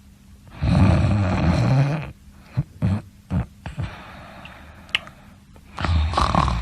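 A sleeping person snoring: one long, rough snore about a second in, a few short snorts after it, and another snore starting near the end.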